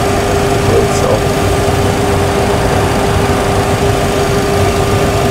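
Steady flight-deck hum of a parked Boeing 737 Classic with its engines shut down and running on ground power: cooling fans and electrical equipment, with a constant mid-pitched tone over a low drone.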